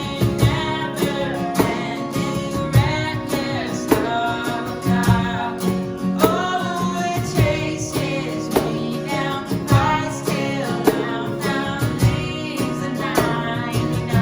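Worship band playing a song with singing over strummed guitar and a steady beat.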